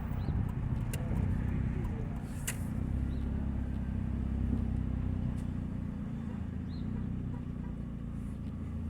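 A 2000 Nissan Altima's four-cylinder engine running at low speed with a steady low drone, noisy from its leaking exhaust.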